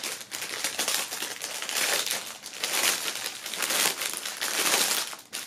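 Thin clear plastic film wrap crinkling and rustling as hands work at it to unwrap a folded shirt, a continuous crackle that rises and falls.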